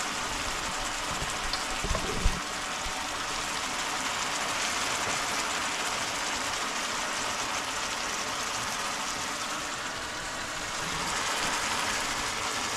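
Chicken adobo simmering in a frying pan: a steady sizzle and bubbling of the pieces in their sauce, with a short knock about two seconds in.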